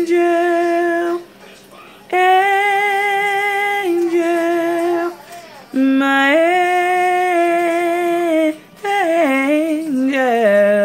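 A woman singing unaccompanied, wordless held notes with vibrato separated by short breaths, closing with two descending runs that settle on a low final note near the end.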